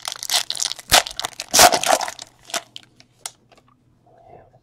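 Foil wrapper of a trading card pack crinkling and tearing as the pack is opened, loudest in the first two seconds, followed by a few light clicks as the cards are handled.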